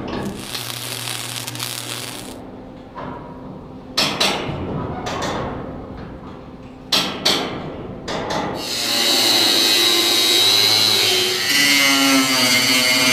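A string of sharp metal knocks and clanks, then from about two-thirds of the way in a Makita angle grinder with a 4-inch metal cutting wheel cutting into steel hull plate, loud and steady. The grinder starts winding down right at the end.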